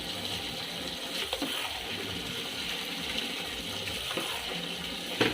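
Water running steadily from a tap as refrigerator trays and the ice box are rinsed under it, with a few light knocks of the parts being handled and a sharper knock near the end.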